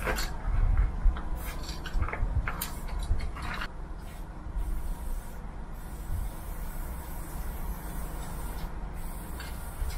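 Aerosol spray-paint can hissing in short bursts: several in the first four seconds, then only a faint one near the end, over a steady low rumble.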